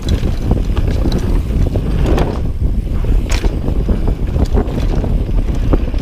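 Wind buffeting an action camera's microphone over the rumble of a Commencal mountain bike's tyres on a dirt trail, with many sharp clicks and rattles from the bike. A louder knock comes a little over three seconds in as the bike lands a small jump.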